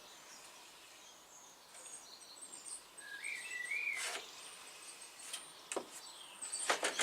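Birds chirping in the background, with one clear rising-and-falling call about three seconds in. A few sharp clicks and knocks, about four seconds in and again near the end, as the aluminium clamp guide rail is handled and lined up on the wood.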